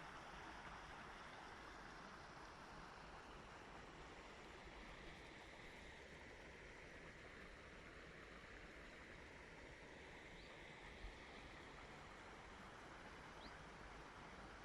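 Faint, steady babbling of a stream.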